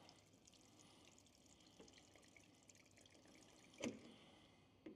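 Faint trickle of fuel draining from the wing-tank sump of a Cessna 177RG Cardinal into a clear sump cup, drawn off as a pre-flight check for water and sediment. One brief louder sound comes late on.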